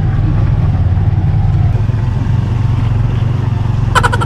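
Engine of a small passenger vehicle running steadily, heard from inside its crowded open-sided cab, with a short sharp burst of noise near the end.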